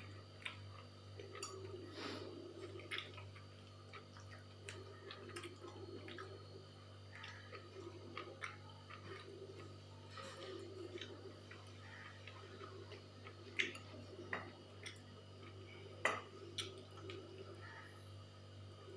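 Close-miked eating: soft chewing and wet mouth sounds with many small scattered clicks, and two sharper clicks about two-thirds of the way through, over a steady low hum.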